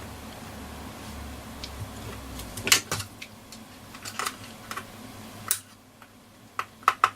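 Scattered small clicks and taps of hands and a tool working a headphone socket loose from a transistor radio chassis, squeezing its retaining sections to free it. A low rumble of handling at first, then single sharp clicks with a quick run of several near the end.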